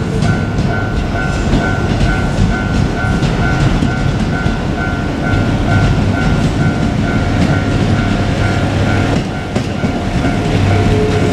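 JR Kyushu KiHa 200 diesel railcar passing over a level crossing, with a loud running rumble and the clatter of wheels over rail joints. A level-crossing alarm rings in a steady repeating two-tone pattern, a few beats a second, and stops about nine seconds in.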